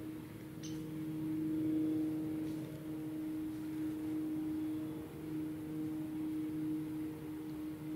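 Soft ambient background music: one held drone note with overtones, slowly swelling and fading.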